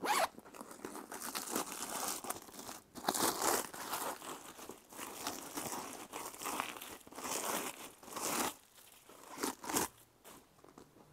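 Rustling and crinkling in uneven bursts as an Esquire Speedy-style handbag is handled and opened. The sound dies away near the end.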